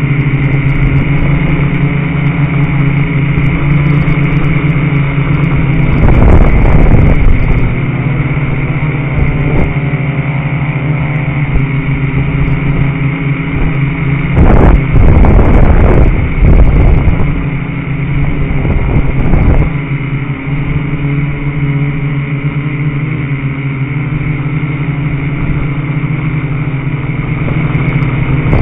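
Quadcopter's electric motors and propellers buzzing steadily, heard up close from the craft itself. Louder rushes of noise come about six seconds in, around fifteen seconds in, and again at the end.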